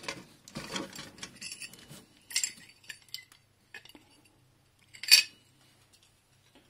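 Loose metal car parts clinking and rattling against each other as they are rummaged through in a box, with one sharp, louder clink about five seconds in.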